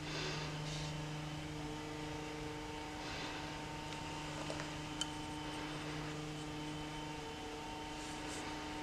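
Steady low electrical hum of room tone, with faint soft swishes of a watercolour brush on paper and one small tick about five seconds in.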